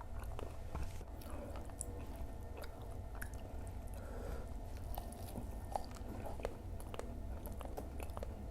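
Close-up mouth sounds of chewing and biting Indonesian fried snacks (gorengan) and raw chilies, with scattered short crisp crunches. A steady low hum runs underneath.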